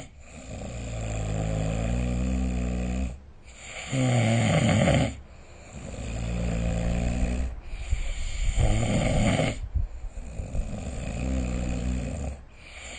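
A person snoring in sleep, breath after breath. Longer, pitched snores of two to three seconds alternate with shorter, louder ones, the pattern repeating about every four to five seconds.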